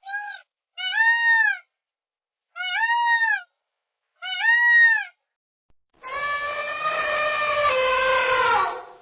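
Animal calls: four short arched cries, each rising then falling in pitch, followed about six seconds in by one longer, harsher call that slowly falls in pitch.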